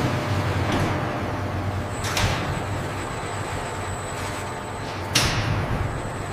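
Steady factory machinery noise with a low hum, and a sharp knock or clank about five seconds in.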